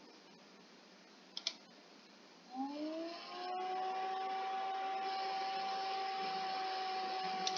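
Two quick clicks, then a machine hum that glides up in pitch as it starts about two and a half seconds in and settles into a steady, even tone.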